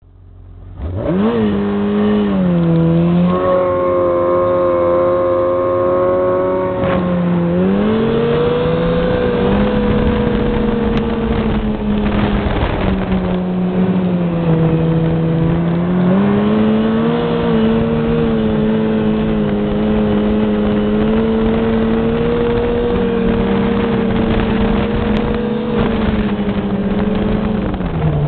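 Yamaha snowmobile engine running under way, its pitch climbing steeply about a second in, then rising and falling again and again as the throttle is worked, over a steady rushing noise.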